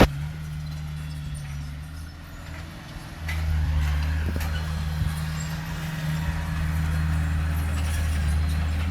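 Heavy diesel engine of earthmoving machinery running with a low drone, pulling harder and getting louder about three seconds in.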